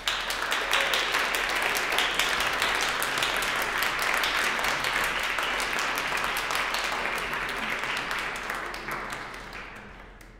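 Audience applauding: dense, steady clapping that starts at once, then dies away over the last second or so.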